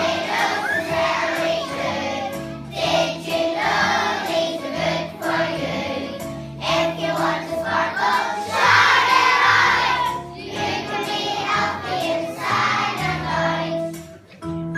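A group of children singing a song together over an instrumental accompaniment.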